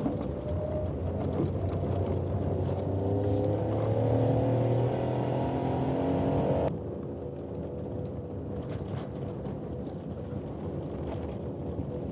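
Maruti Suzuki Alto 800's small three-cylinder petrol engine pulling hard up a steep climb on loose gravel, its revs rising slowly. A little over halfway through, the sound drops suddenly to a quieter, steady engine note.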